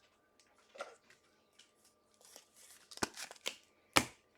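Trading cards being handled: soft rustles and clicks of cards sliding against one another, a small cluster of them about three seconds in and a sharper tap about four seconds in.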